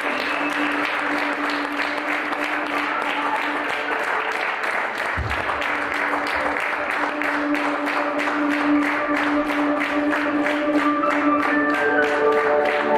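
Audience applauding, the clapping becoming even and rhythmic in the second half, over music with a long held note. A brief low thump comes about five seconds in, and a melody of short notes comes in near the end.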